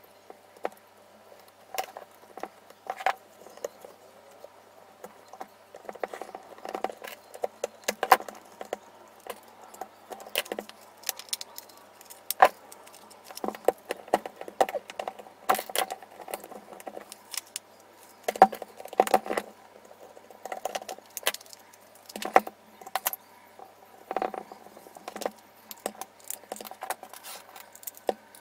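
Irregular clicks, taps and light rattles of a cordless impact driver's plastic housing and parts being fitted together and screwed up with a small screwdriver, now in ones and twos, now in quick clusters.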